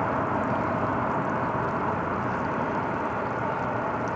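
A steam-hauled passenger train behind the A1 Pacific locomotive Tornado, heard across open water as a steady rumbling run-past with no separate exhaust beats.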